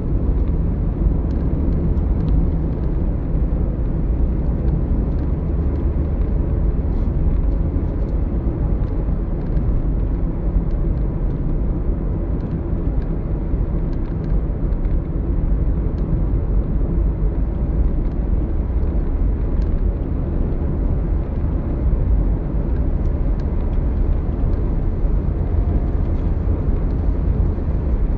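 Steady road and engine rumble inside the cabin of a car driving at highway speed, deep and even throughout.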